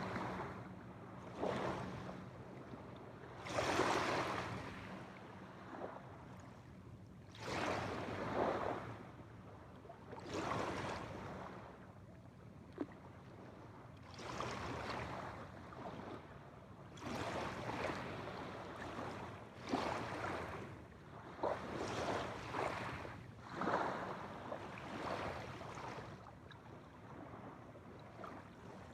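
Small waves washing in on a shore one after another, each swell of splashing rising and fading every two to four seconds, with a few sharp little splashes and a faint steady low hum underneath.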